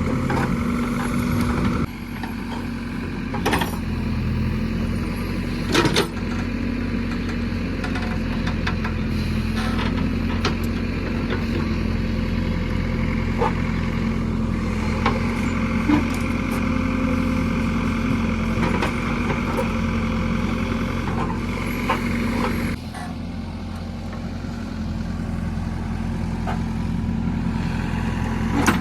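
JCB 3DX backhoe loader's diesel engine running steadily under working load. It drops back in revs about two seconds in and again near the end. Several short, sharp knocks are scattered through it.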